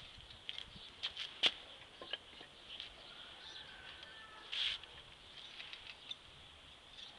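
Faint scattered clicks and a brief rustle about four and a half seconds in, with no engine running.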